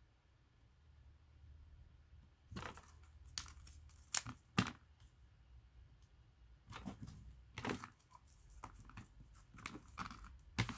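Paper and plastic sheets crinkling and crackling as they are handled, in short crisp bursts: a cluster from about two and a half to five seconds in and another around seven to eight seconds, quiet between.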